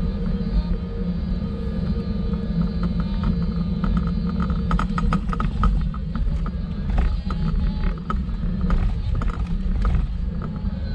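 Wheels rolling over paving and cobblestones: a steady low rumble throughout, with bursts of rattling clicks from about four seconds in as the ground gets rougher.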